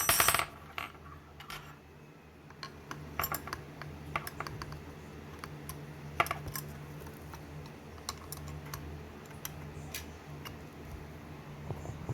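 A sharp metallic clink at the start, then scattered light clicks and taps of a long Allen wrench working the grip screw out of an AR-15, over a steady low hum.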